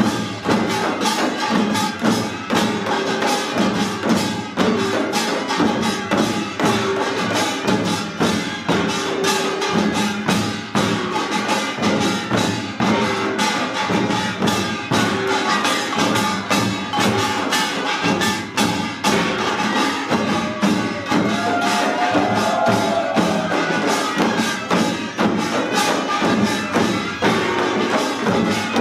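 Korean pungmul percussion band playing pangut: dense, driving strokes on janggu hourglass drums and buk barrel drums, with the metallic clanging of small gongs running through it.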